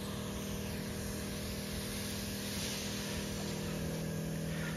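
Pump inside an Ultra Steam and Clean coin-operated carpet and upholstery cleaner running with a steady hum, while its pre-treatment gun sprays a fine mist through a cone-shaped nozzle with a steady hiss.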